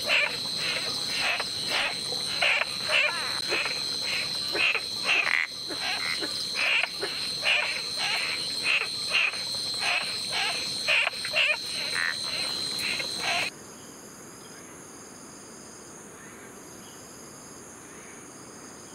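Wildlife chorus: a call repeated about twice a second over a steady high insect drone. About 13 seconds in it cuts off abruptly to a quieter background of insects, with a high buzz pulsing on and off.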